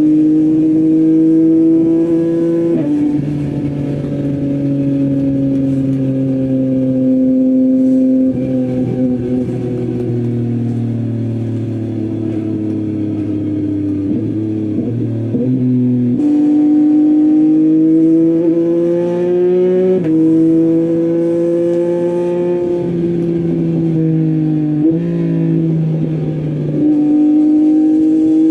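Yamaha MT-09's 890 cc inline three-cylinder engine through an Akrapovic full-system exhaust, heard from the rider's seat while riding. The engine note holds and drifts gently, with a sudden drop in pitch about three seconds in and again near the end, and sudden rises about halfway and just before the end as the rider changes gear.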